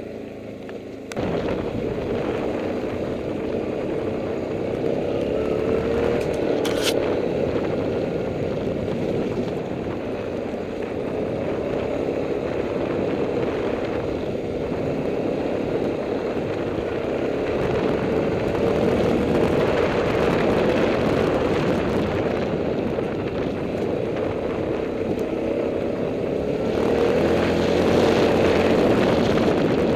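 ATV engine running while riding down a rough, rocky trail, its note rising and falling gently with the throttle, over a rough rumble of tyres on loose rock. It gets louder suddenly about a second in.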